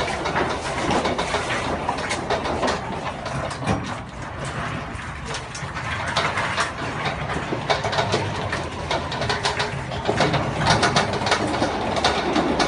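Small remote-controlled electric tracked dozer at work pushing rubble: steady mechanical running with frequent clanks and knocks as it moves the debris.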